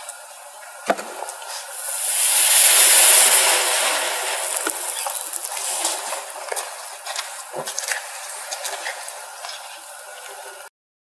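Overcharged lithium-ion phone battery venting gas in thermal runaway: a loud hiss swells about two seconds in and fades over a few seconds, with scattered crackles and pops, a sharp pop about a second in. The sound cuts off just before the end.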